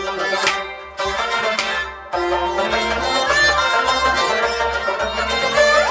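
Traditional Kashmiri Sufi ensemble playing an instrumental passage: harmonium chords with a plucked rabab and a bowed fiddle. The music dips briefly twice, about one and two seconds in.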